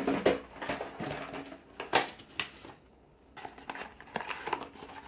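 A small cardboard blind box and its paper wrapping being handled and opened by hand: irregular taps, clicks and crinkling rustles. A few sharper clicks stand out near the start and about two seconds in, and quicker small crackles follow in the last couple of seconds.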